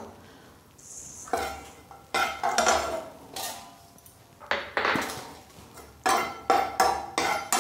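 Steel kitchen utensils clinking: a steel bowl set down and a slotted steel spoon knocking and scraping in a frying pan. The clinks come one by one, each with a short ring, and come closer together near the end.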